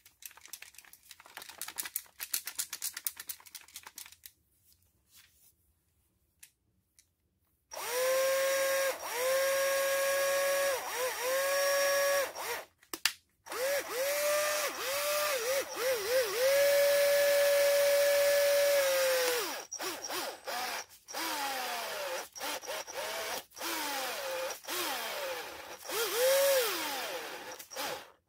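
Bosch GSR 14.4 V cordless drill run in short bursts on its trigger: the motor's whine rises and falls with the speed, holds steady for a few seconds at a time, then winds down in falling glides during several quick runs near the end. Rapid clicking comes before the motor starts.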